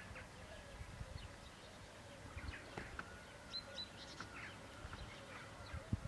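Small songbirds chirping and calling in the background, short scattered notes, over a low rumble.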